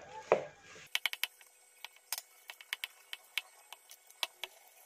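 Balloon whisk clicking and tapping against a plastic mixing bowl as a thick cookie-crumb batter is stirred with milk: irregular sharp taps, about three a second, the loudest just after the start.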